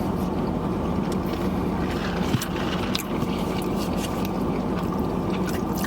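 Steady low rumble with a constant low hum, typical of a vehicle running, with a few faint clicks.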